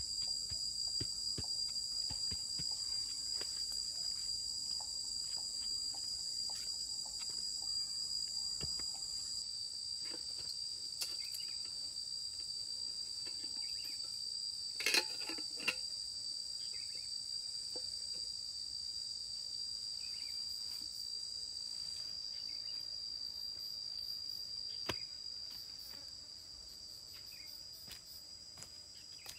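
Steady high-pitched droning of forest insects, with scattered light clicks and knocks and a short cluster of louder knocks about halfway through.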